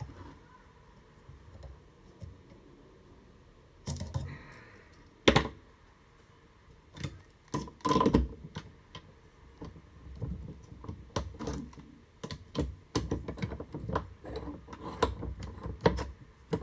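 Irregular metallic clicks and clanks from handling an aluminum strip, locking pliers and a bench vise, with louder knocks about five and eight seconds in and the vise's handle being worked near the end.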